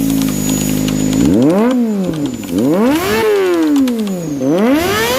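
Kawasaki ZX-25R's 250 cc inline-four idling through an aftermarket exhaust, then revved hard three times in quick succession, the pitch sweeping up and dropping back each time, starting a fourth rise near the end.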